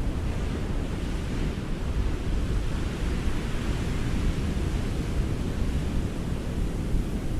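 Ocean surf washing onto a beach: a steady noise with a deep low rumble, with a wave's hiss swelling between about two and four seconds in.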